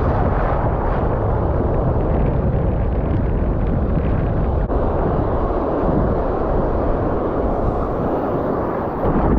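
Steady rumble of wind buffeting the microphone over the wash of breaking surf.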